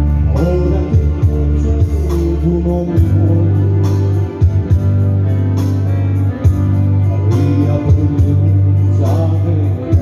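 Live dance music played on an electronic keyboard, with a steady beat, held bass notes and a melody, and a man singing into a microphone.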